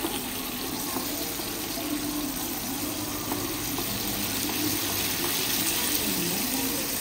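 Salted Indian mackerel frying in shallow oil in a nonstick pan: a steady sizzle.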